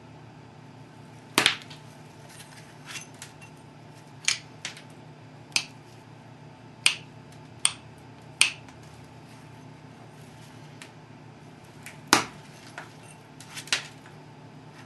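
Sharp clicks of flakes popping off a chert Dalton point under a hand-held pressure flaker, about a dozen at irregular intervals. The loudest come about a second and a half in and again near twelve seconds.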